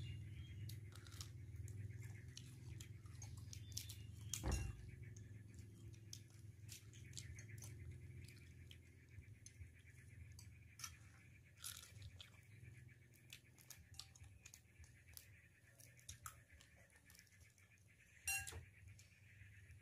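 Faint clicks and crackles of cooked prawn shells being peeled by hand, with chewing and light clinks of plates and cutlery. Two louder knocks stand out, about four seconds in and near the end.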